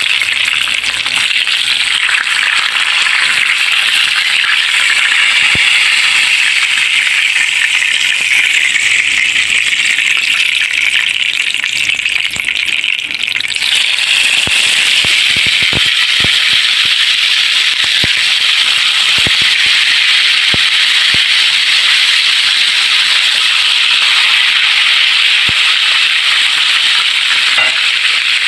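Fish frying in hot oil in a pan: a steady sizzle, with scattered pops and crackles from about halfway through.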